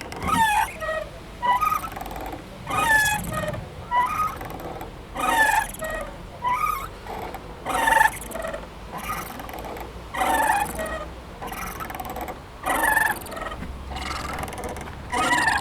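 Playground swing squeaking on its hangers as it swings back and forth: a loud squeak about every two and a half seconds, with fainter squeaks in between.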